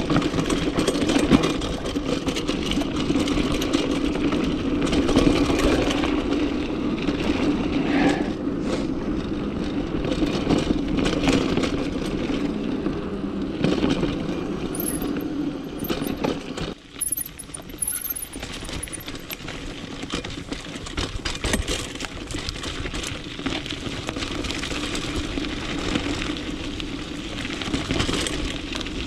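Mountain bike rolling over a rocky dirt trail: tyres crunching over stones and leaves, with the chain and bike rattling and clicking on the bumps over a steady buzz. The buzz is strongest in the first half, dips briefly about 17 seconds in, then carries on softer.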